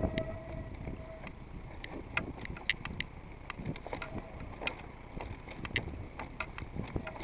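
Mountain bike rattling down a rocky dirt trail: many irregular sharp clicks and clatters from the bike over the stones, over a low rumble of tyres and wind.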